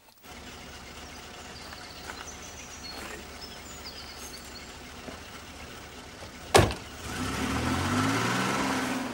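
Car engine running and pulling away, getting louder in the last couple of seconds, preceded by a single sharp bang about six and a half seconds in.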